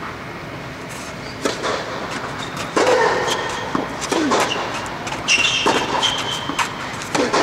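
Tennis rally on an indoor clay court: racquet strikes and ball bounces about every one and a half seconds, echoing under the air dome, with players' footsteps on the clay, over a steady background hum.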